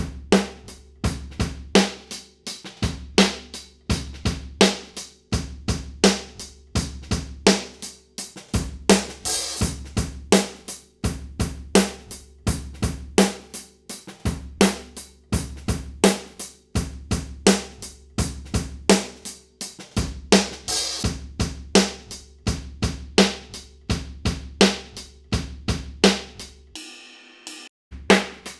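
Drum overhead recording of a drum kit playing a steady beat, with kick, snare and cymbals, played back through an EQ while harsh high frequencies in the presence range are being cut. Near the end the beat drops out for about a second, leaving only cymbal wash, then starts again.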